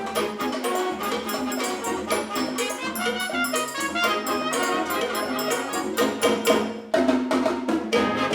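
High school wind ensemble playing a mambo-style Christmas arrangement, with brass and percussion over a Latin beat. It breaks off for a moment about seven seconds in, then the full band comes back in loudly.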